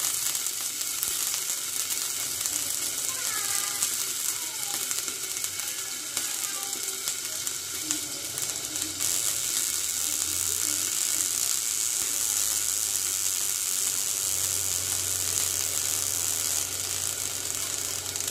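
Okra frying in hot oil in a covered pan: a steady sizzle.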